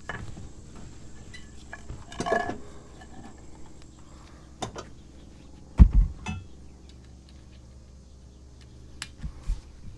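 Metal and wood handling under a riding-mower deck as a wooden block is wedged against the new blade: scattered clinks and knocks, a ringing metal clink about two seconds in and a heavy thump near six seconds.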